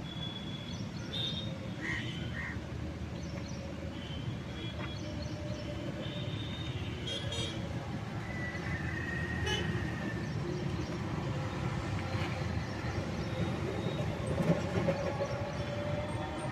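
Road traffic running steadily, with short horn toots now and then.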